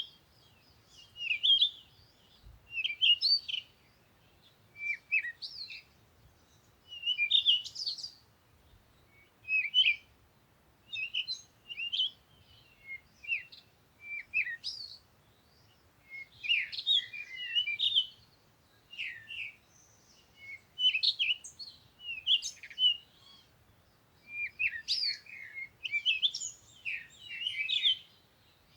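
A bird chirping in short, varied phrases of quick sweeping notes, repeated every second or two.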